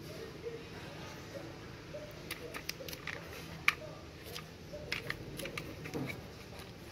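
Scattered light clicks and taps, one sharper than the rest about midway, over a faint steady low hum.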